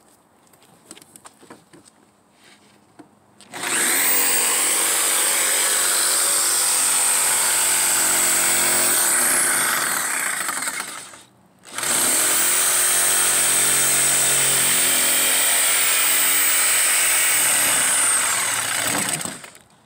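Corded Ridgid jigsaw cutting a curve in plywood. It starts about three and a half seconds in and runs steadily for about seven seconds, stops briefly, then starts again and cuts for about seven seconds more before winding down near the end.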